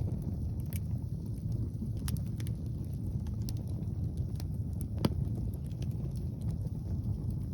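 Wood fire crackling with scattered sharp pops, one louder pop about five seconds in, over a steady rumble of wind on the microphone.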